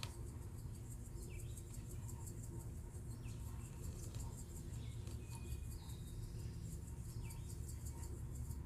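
Black pepper grinder being turned over a dish: a fast, even grinding with about five ticks a second that stops near the end. A few short chirps, like faint birdsong, come through now and then.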